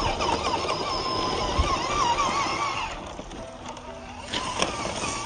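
Small electric motor of an MN82 1/12-scale RC truck whining, its pitch rising and falling repeatedly with the throttle, then dropping back quieter. A few sharp knocks come near the end.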